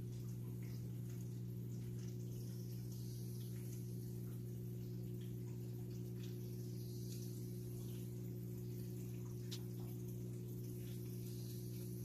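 Aquarium filter running: a steady low hum with faint water trickling and splashing over it.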